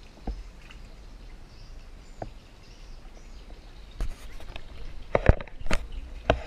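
A wooden rowing boat being paddled along a canal: quiet paddle and water sounds under a steady low rumble, with a few sharp knocks that bunch up and are loudest between about five and six and a half seconds in.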